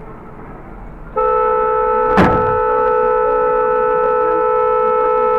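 Vehicle horn sounded in one long, steady blast starting about a second in, over road noise. A sharp knock cuts through it about two seconds in.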